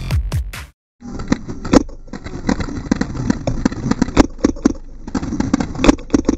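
Electronic dance music cuts off abruptly just under a second in. After a moment of silence, paintball markers fire a steady stream of sharp pops, several shots a second, faster and more even near the end.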